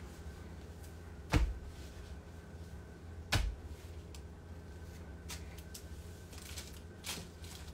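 Someone rummaging in a clothes closet: two sharp knocks about two seconds apart, then a few lighter clicks, over a steady low hum.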